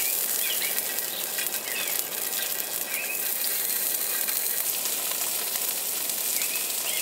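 Food frying in oil on a flat griddle pan, a steady crackling sizzle, with birds chirping now and then.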